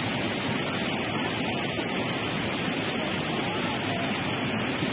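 Steady, even rushing noise of heavy rain, with no distinct events.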